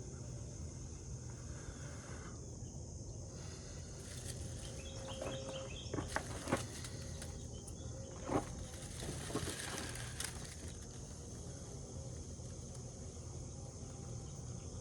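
Steady high drone of insects, crickets or similar, over a low background rumble. A few soft clicks and rustles come between about four and ten seconds in.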